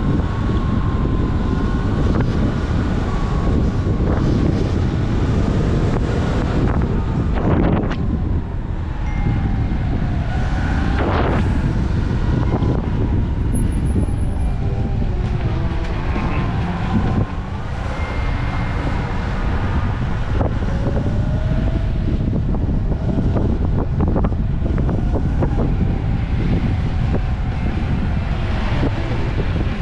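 Wind buffeting the microphone of a moving action camera during a ride, with road traffic passing and a few brief louder swells.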